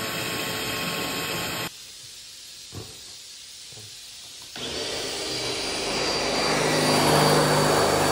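Cordless drill boring rivet holes through the hood vent's flange into the sheet-metal hood. A steady motor whine runs for the first couple of seconds, then a quieter pause with a few light knocks. From about halfway a second, longer run of drilling starts and grows louder.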